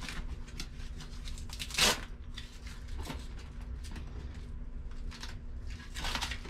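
Velcro straps of a travel organizer bag being pulled tight and fastened onto a suitcase: a run of scratchy rustles and rasps, with one sharp rasp about two seconds in and another near the end.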